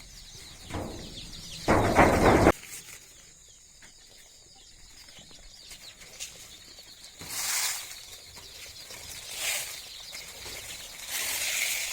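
Rustling, handling noises in a chick brooder, with one loud noisy burst lasting under a second about two seconds in and softer rustles later, as starter feed is given to the chicks. Brooding chicks peep faintly throughout.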